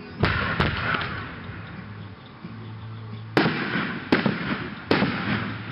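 Aerial firework shells bursting in five sharp bangs, each followed by a fading echo. Two come close together just after the start, then three more follow at short, even intervals from about three and a half seconds in.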